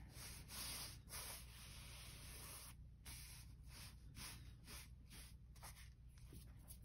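Faint, soft rubbing and brushing of hands over a paper-and-fabric book cover, in a run of short swishes, as the freshly glued fabric on the spine is pressed down.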